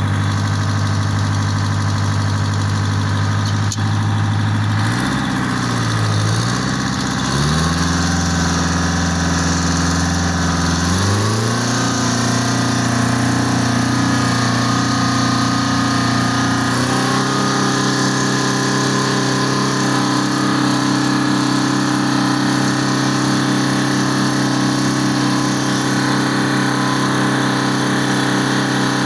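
Two-stroke Detroit Diesel engine of a 1950 Oliver tractor running loud, its speed raised in steps about seven, eleven and seventeen seconds in and then held steady at the higher speed.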